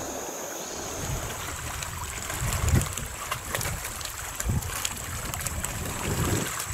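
Water lapping and trickling around a kayak on open water, with gusts of wind thudding on the microphone about a third and two-thirds of the way through.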